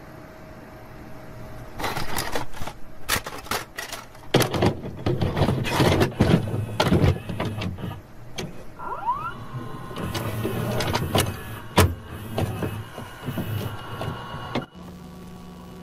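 A videotape being loaded into a VCR: a run of clicks and knocks, then a short rising whine about nine seconds in as the deck's small motors whir.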